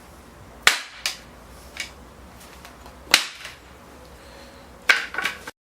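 Wooden parts knocking together as a post is fitted into a notched wooden base: a few sharp knocks spaced out, then a quick cluster of three near the end before the sound cuts off abruptly.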